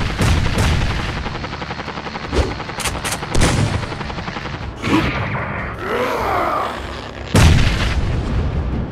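Cartoon battle sound effects: a run of gunshot blasts and explosions, with a loud blast about seven and a half seconds in.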